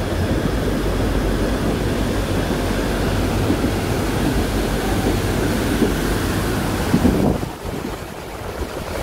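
Steady rushing roar of Dudhsagar waterfall's falling water and spray, with wind on the phone's microphone, over the low rumble of a passing train. The sound drops away sharply about seven seconds in, leaving a quieter rushing.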